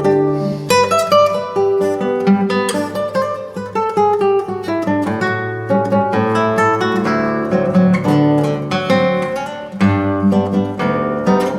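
Solo classical guitar, a 1965 José Ramírez concert guitar, playing a rapid stream of plucked notes over low bass notes.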